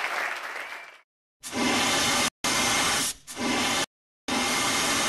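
The tail of applause and music fades out within the first second. Then come four bursts of steady hiss, each starting and stopping abruptly, with short silent gaps between them.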